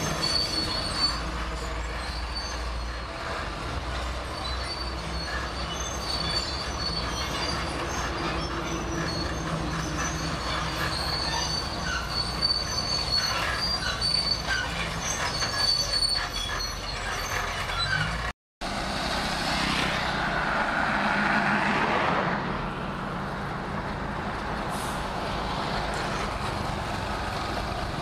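Shantui SD22 crawler bulldozer working, its diesel engine running steadily under load while the steel tracks squeal and clank. There is a brief break about two-thirds of the way through, after which the machinery is louder for a couple of seconds before it settles.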